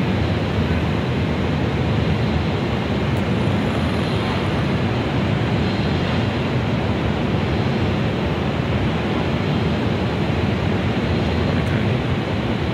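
Steady low rushing noise of wind buffeting a phone microphone on an open high-rise rooftop.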